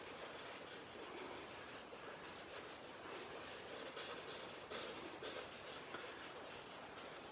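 Watercolour paintbrush scrubbing over paper on a flip chart: faint, quick rubbing strokes that come thicker from about two seconds in.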